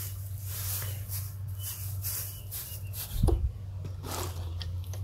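Woven plastic sacks rustling as they are moved over a wire-mesh cage, with a dull thump about three seconds in. A steady low hum runs underneath.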